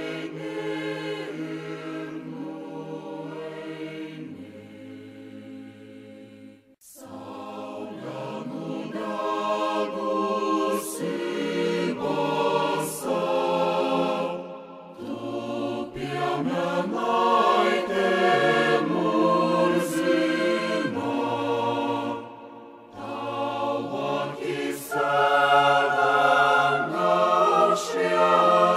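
A choir singing in harmony in long held notes, with a brief break about seven seconds in.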